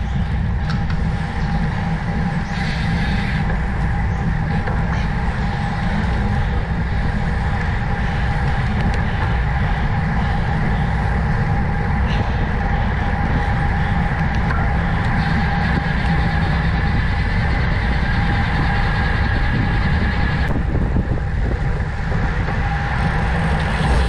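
Wind buffeting the microphone during a ride, a steady low rumble with an even road and tyre hum over it.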